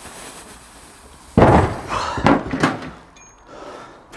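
A heavy metal tool chest set down onto a wooden table: one loud thump about a second and a half in, then a few lighter knocks as it settles.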